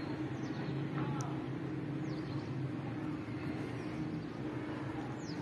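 Steady low hum of distant machinery or traffic, with a few faint high chirps.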